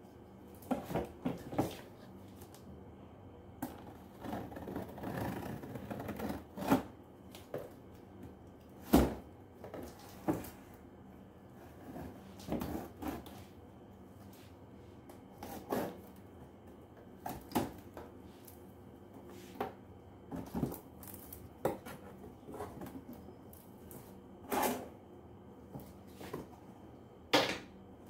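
Cardboard carton being handled and opened by hand: irregular knocks, taps and scrapes of the box and its flaps, with short rustling stretches between them and one sharper knock about nine seconds in.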